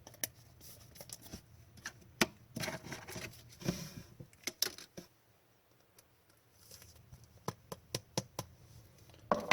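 Hockey trading cards being handled and flipped through: a scatter of sharp clicks and soft sliding sounds, with a quiet pause about halfway.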